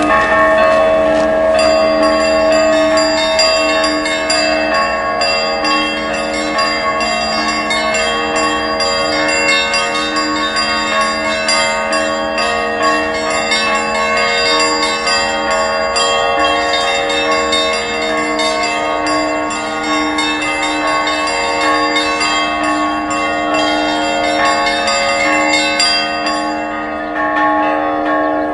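Church bells ringing continuously, several bells sounding together so that their tones overlap and hang in the air.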